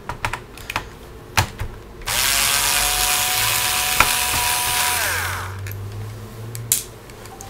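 Small electric screwdriver whirring for about three seconds as it backs out a laptop case screw: the motor spins up about two seconds in, runs steadily, then winds down. A few light clicks of the tool and screws come before and after it.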